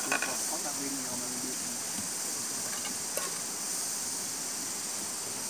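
Steady high-pitched insect drone, with a brief murmur of voices at the start and a couple of faint clicks.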